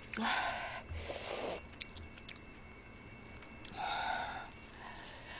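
A woman breathing out in sharp, breathy puffs and sniffing while eating spicy chicken feet, with a few small wet mouth clicks in between and another breathy sound about four seconds in as she bites.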